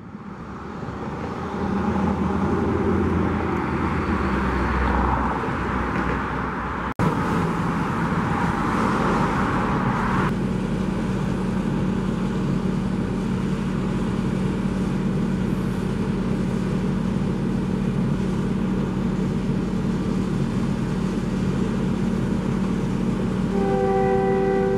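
Road traffic passing, with a steady low engine hum under it. Near the end a diesel locomotive's multi-note chime horn begins sounding, most likely Union Pacific 1413, an EMD GP40-2.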